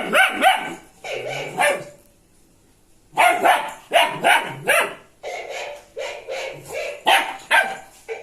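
Dog barking repeatedly in quick runs of short barks, with a pause of about a second near the middle.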